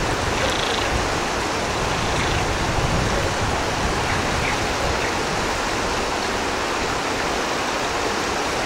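Steady rushing of the Ouzoud waterfall and river, an even, unbroken roar of water.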